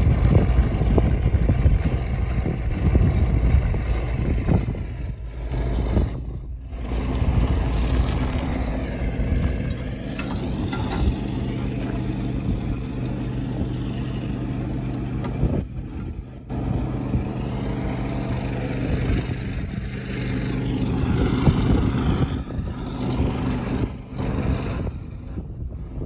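An engine idling steadily, with wind buffeting the microphone over the first several seconds.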